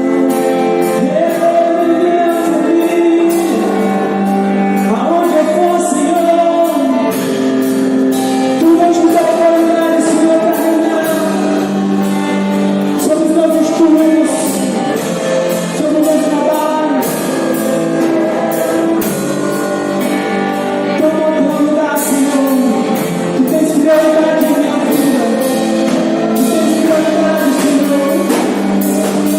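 Worship music: a voice singing a melody over a band, with a steady drum beat.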